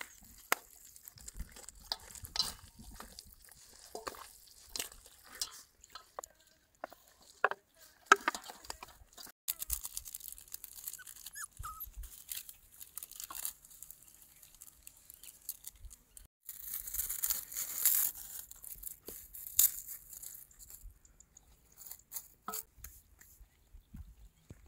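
Food-handling sounds while cooking: scattered small clicks and knocks with crinkling and tearing, and a burst of hiss lasting about two seconds two-thirds of the way through.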